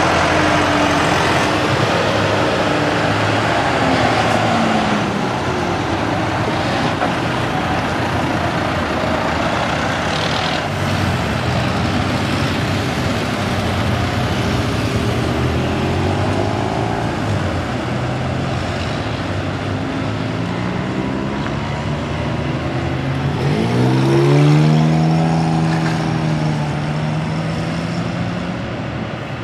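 A convoy of farm tractors drives past one after another with their diesel engines running. About 24 seconds in, one engine rises in pitch and grows loudest as it accelerates close by.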